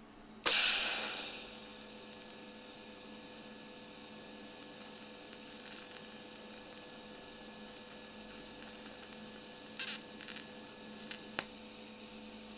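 TIG welder striking an arc on a metal-tube frame: a loud sudden burst about half a second in that fades over a second, then a steady electrical hum while the arc burns, with a few brief crackles near the end.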